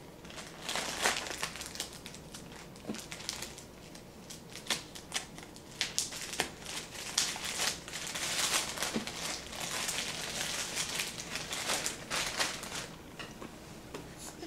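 Rustling and crinkling from something being handled, with scattered sharp clicks, thickest in the middle stretch, as more Play-Doh is got out and handed over.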